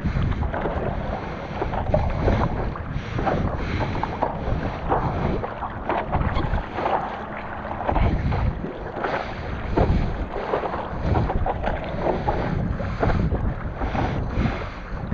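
Strong wind buffeting the microphone in gusts, a heavy low rumble that rises and falls in loudness.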